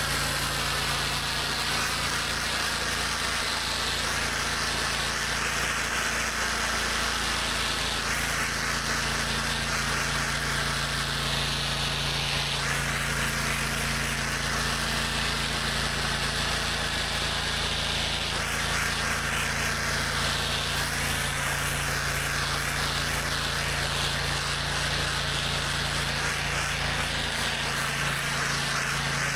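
A pressure washer's engine running steadily, with the hiss of high-pressure water spraying onto concrete. The spray's tone shifts every few seconds as the spray moves over the surface.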